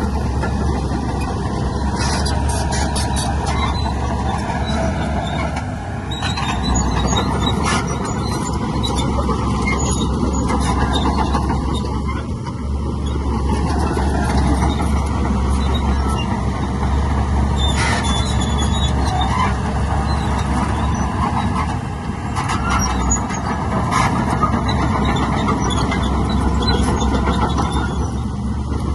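Heavy diesel earthmoving machinery working, with a steady low engine drone, metallic squeals and scattered clanks.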